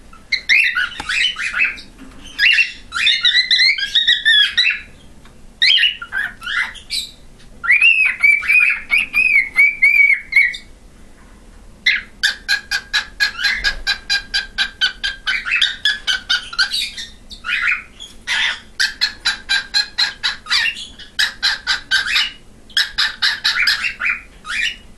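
Male cockatiel singing a long run of whistled phrases and warbles: a learned song mixing copied whistles. A long wavering whistle comes about a third of the way in, and most of the second half is rapid chattering notes over a held whistle.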